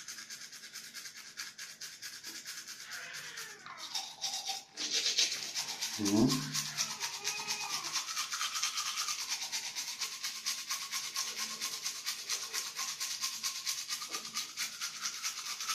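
Toothbrush scrubbing teeth in rapid strokes, growing louder about five seconds in. A brief low falling tone about six seconds in.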